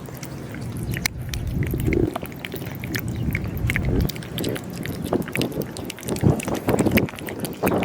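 A cat eating close to the microphone: quick, irregular crunching and chewing of cat food, with a few louder knocks near the end.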